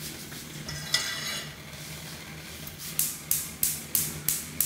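A spoon stirring in a cooking pot on the stove, scraping in quick regular strokes about three a second over a steady low hum, after a single scrape about a second in.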